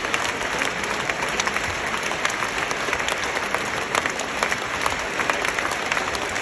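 Large audience applauding steadily: dense, even clapping of many hands, with individual sharp claps standing out.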